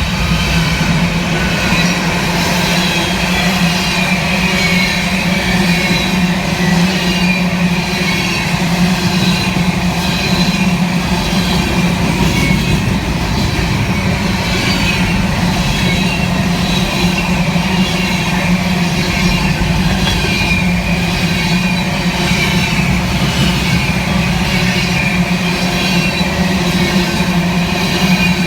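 Freight train cars rolling past close by: a steady loud rumble of wheels on rail, with faint high wheel squeal.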